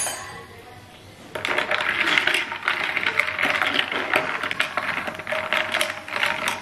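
Ice being stirred in a tall glass with a thin metal stirrer: a single sharp clink at the start, then from about a second and a half in a fast, continuous clinking and rattling of ice and metal against the glass, which rings.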